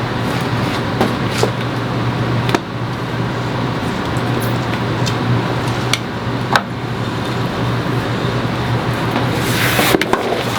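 Steady low hum and hiss of background noise, with a few light taps and clicks scattered through it.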